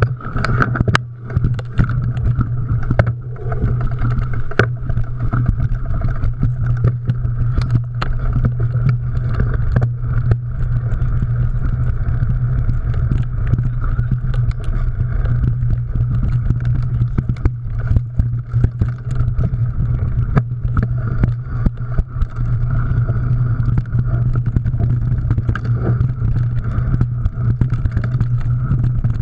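Mountain bike being ridden on a rough trail, heard as a steady rushing drone on the camera microphone, with frequent sharp clicks and knocks from the bike rattling over the ground.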